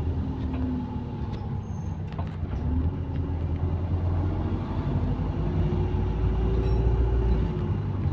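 Bus engine running with a heavy low drone, its exhaust leaking; it grows louder past the middle, then eases near the end.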